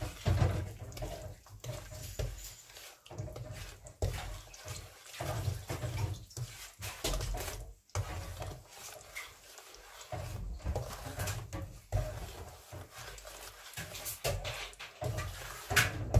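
Wooden spatula stirring a thick mix of blended strawberries, sugar and gelatin in a stainless steel pan. The strokes are irregular and come about every second or two, with wet sloshing and scraping against the pan.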